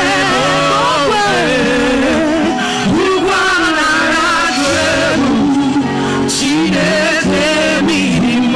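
Church worship music: a voice singing long, wavering notes over steady held backing chords.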